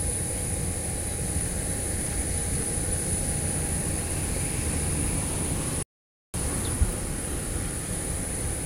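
Steady outdoor rumble and hiss with a thin steady tone running through it. The sound cuts out completely for about half a second around six seconds in, and a single short thump follows soon after.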